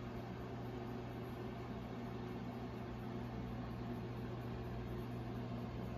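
Steady low electrical hum under a faint, even hiss: room tone.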